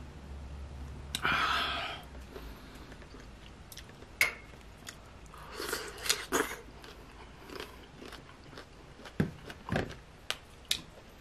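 Close-miked biting and chewing of crunchy sour green mango dipped in chili sauce: a brief rustling scrape about a second in, then scattered crisp crunches and wet chewing.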